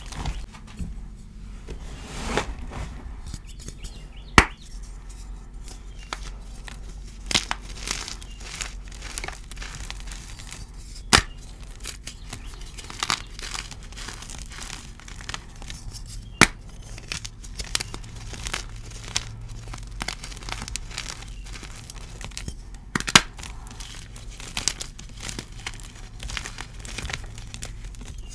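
Blocks of dyed gym chalk crushed and crumbled by hand: continuous crunching and crackling, with a few sharp, loud snaps as larger pieces break apart.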